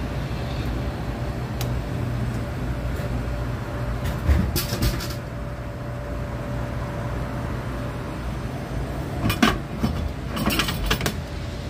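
Coca-Cola bottle vending machine humming steadily. About four seconds in there is a burst of clunks as the machine vends. Near the end come a series of knocks and rattles as the delivery bin's flap is pushed open and the bottle is pulled out by hand.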